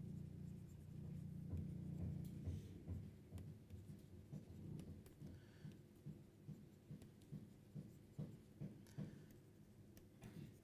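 Stylus writing by hand on a pen tablet: faint, irregular taps and short scratching strokes, with a low hum under the first couple of seconds.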